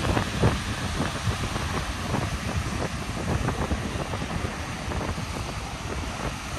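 Wind buffeting the microphone in a steady, gusting rumble, over the hiss of surf washing on a sandy beach.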